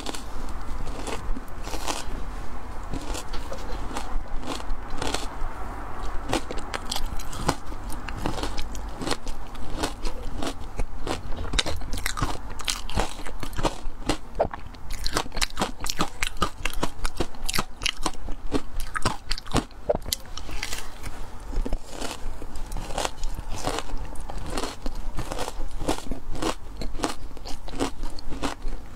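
Close-miked crunching and chewing of frozen matcha ice: dense, sharp cracks as the teeth break it up, with a short lull about halfway, over a low steady hum.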